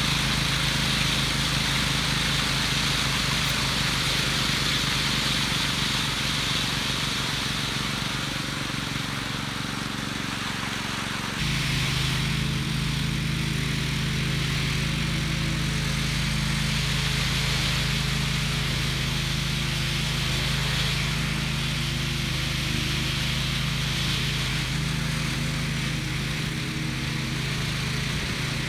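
Small gasoline engine of a walk-behind concrete power trowel running steadily. Its note changes abruptly about 11 seconds in and then holds steady.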